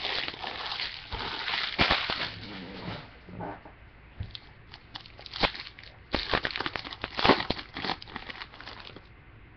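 Foil trading-card pack wrappers crinkling as the packs are handled, with a pack torn open in the second half, among sharp clicks and card rustles.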